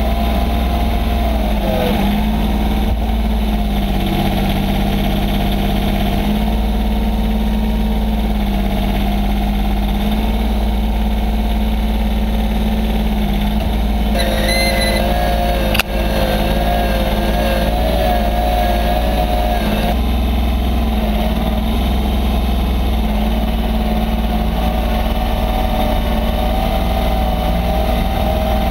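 Massey Ferguson 1020 compact tractor's three-cylinder diesel engine running steadily. About halfway through, a wavering whine rises over the engine for several seconds as the front loader is worked, with one sharp knock during it.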